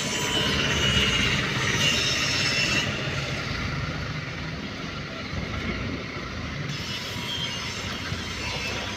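Busy street ambience: a steady din of vehicle traffic, with a few short high squeals in the first few seconds.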